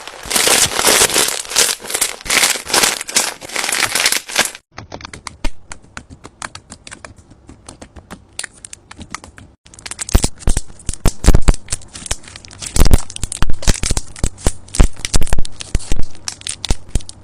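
Slime being squeezed and poked by hand, giving rapid sticky crackling with sharp clicks and pops. It comes in three edited stretches: dense and loud at first, then quieter and sparser from about five seconds in, then loud sharp popping again from about ten seconds in.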